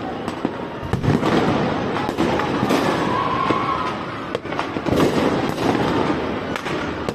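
Fireworks and firecrackers going off over a city, with many sharp bangs crowding one on another over a constant wash of more distant bursts. The bangs come thickest about a second in and again around five seconds in.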